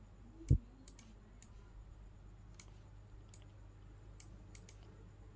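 Faint computer mouse clicks, about eight scattered over a few seconds, with a short low thump about half a second in.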